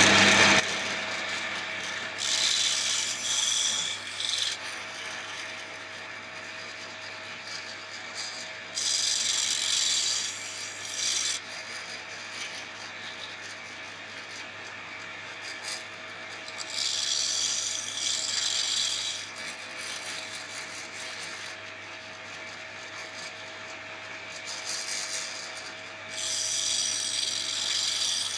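Old bench grinder running steadily with a low hum while a worn steel twist drill bit is pressed to the wheel four times, each pass a harsh grinding hiss of two to three seconds: the first rough regrind of a badly damaged bit.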